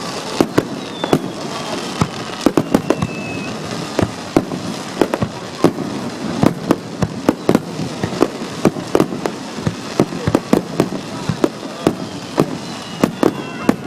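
Aerial fireworks bursting in a rapid, irregular run of sharp bangs, several a second, with a faint whistle gliding downward about a second in. Recorded on a digital camera's microphone, so the booms sound distorted.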